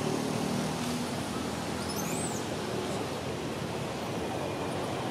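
Steady outdoor background noise, a broad even hiss and rumble, with one short high chirp from a bird about two seconds in.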